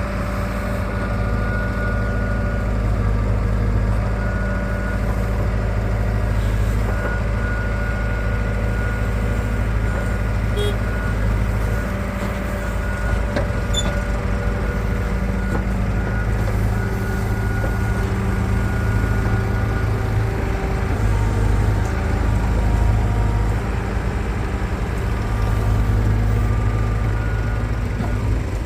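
Heavy diesel engine of a tractor-type machine running steadily at a constant speed.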